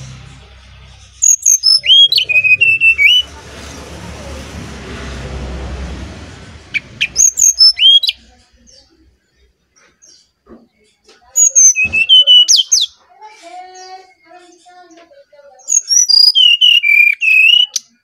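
Brown-chested jungle flycatcher singing a flute-like whistled song: four loud phrases of clear notes that glide downward, each a second or two long, spaced a few seconds apart. A low, steady background noise runs under the first few seconds.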